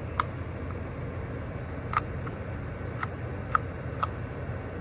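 Sharp light clicks from handling the packaging of a vape box, about five of them spread irregularly, over a steady low rumble.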